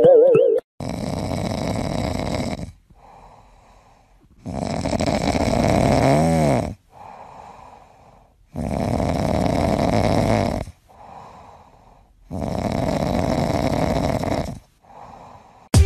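A sleeping cat snoring: four loud snores about every four seconds, each about two seconds long, with a softer breath out between them.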